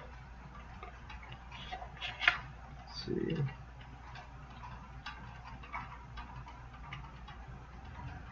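Small items and packaging being handled on a desk: scattered light clicks and taps, with one sharper click about two seconds in. A brief low murmur of a voice follows a second later.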